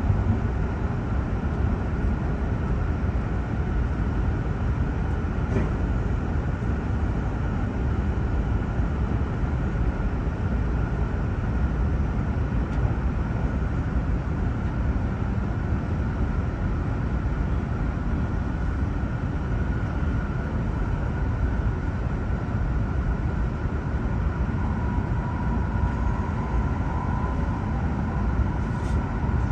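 E7 series Hokuriku Shinkansen train running, heard inside the passenger cabin: a steady, even running noise with a faint steady high tone in it.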